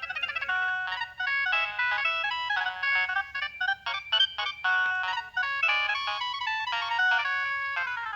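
A preloaded ringtone on a Nokia 6610 mobile phone playing a fast synthesized melody through the phone's speaker, thin with no bass, with quick runs of notes in the middle.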